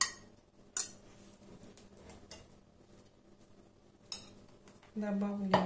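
A metal fork clinking sharply against a ceramic plate and bowl, about a second in and again near four seconds, with faint scraping and stirring of grated beetroot between the clinks.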